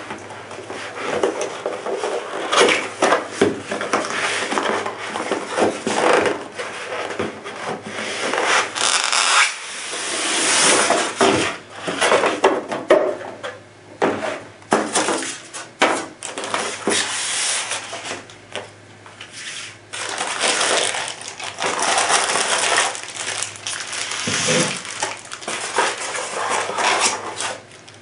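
Packaging being handled during an unboxing: a cardboard box being tipped and opened, a styrofoam insert rubbing and being pulled apart, and plastic-bagged parts being set down, in an irregular run of rustles, scrapes and small knocks.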